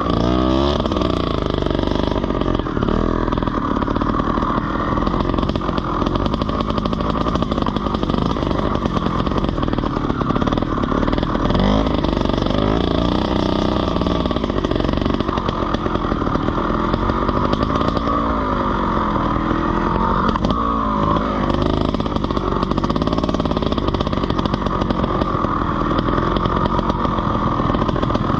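Trials motorcycle engine running under constant throttle changes, its pitch rising and falling over and over as the rider blips and rolls the throttle through the section.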